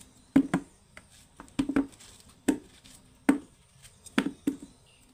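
Guavas being cut with a knife, the pieces dropping into a plastic bucket: a string of about seven hollow thuds, some in quick pairs.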